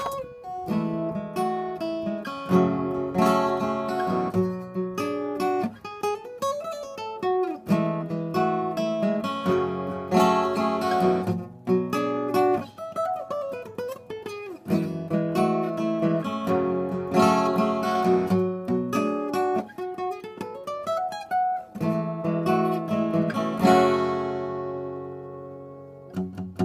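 Solo acoustic guitar playing an instrumental break: melody notes over strummed chords, with a few notes sliding up and back down. It ends on a chord left to ring and fade.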